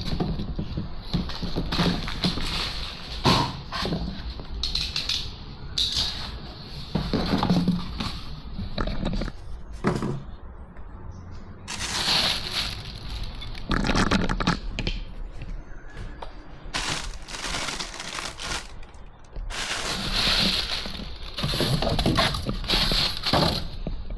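Irregular scraping, knocking and clattering of hand work, coming in bursts of a second or two with short pauses between them.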